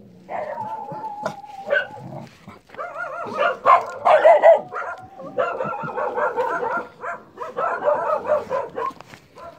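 Dog whining in high, wavering calls that run almost without a break, loudest in the middle, while being petted.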